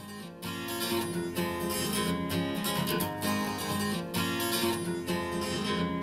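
Instrumental intro of a pop song with strummed acoustic guitar, rising in level over the first second and then steady, played back through Audioengine A5+ powered bookshelf speakers and picked up by a microphone in the room.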